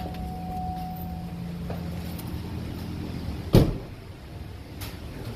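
A steady low hum, then a car door shut with one solid thud about three and a half seconds in.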